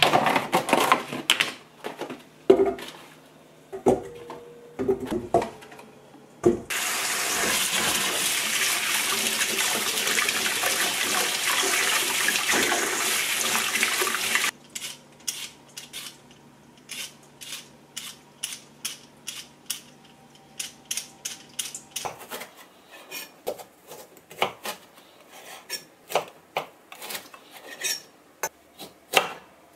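A plastic tray of deodeok roots knocks and rattles in a stainless steel sink. Then a kitchen tap runs for about eight seconds while the roots are rubbed under the stream. After the water stops come faint scattered clicks, and in the last several seconds a knife taps lightly and fairly regularly on a wooden cutting board as it splits the peeled roots.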